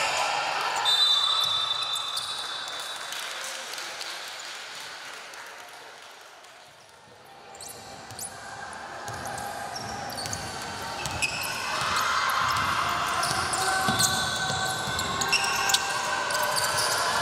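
Basketball game on an indoor court: the ball bouncing on the floor, with high squeaks of sneakers. The sound fades down to quiet about halfway through, then comes back up.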